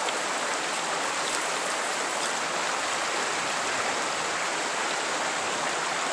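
River water rushing steadily past, an even flowing-water noise with no breaks.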